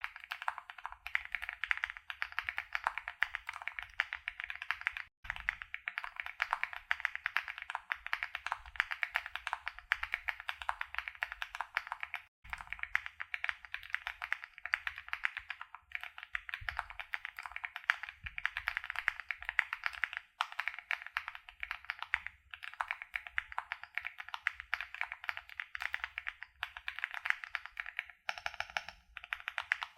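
Fast, continuous typing on a 65% mechanical keyboard with HMX Joker switches, Candy keycaps and Poron foam, a dense run of key clacks. It stops briefly twice, about five and twelve seconds in.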